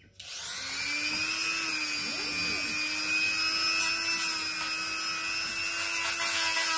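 Handheld electric rotary tool (Dremel-type) with a cut-off disc spinning up about a quarter second in, then running at a steady high-pitched whine while trimming 3D-printed plastic suspension mounts.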